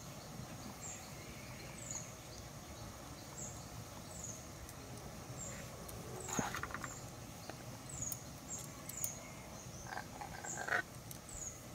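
Faint background of short, high, falling chirps from a small animal, repeating roughly once a second, with two brief louder calls about six and ten seconds in.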